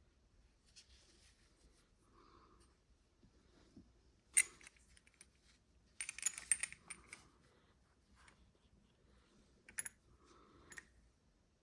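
Small hard clicks and a short clattering rattle as a Glock pistol and its parts are handled: one sharp click about four seconds in, a busier run of clicks about six seconds in, then two more clicks near the end.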